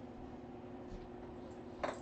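Quiet steady room hum with one short light knock near the end.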